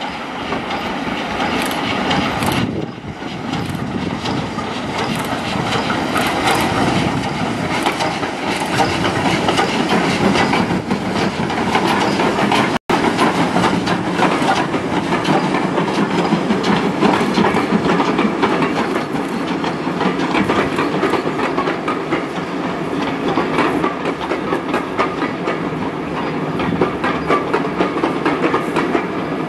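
Two steam locomotives double-heading a passenger train, GWR prairie tank 4566 leading a 4-6-0 tender engine, their exhaust beats chuffing rapidly over wheel noise on the rails. There is a momentary break in the sound midway.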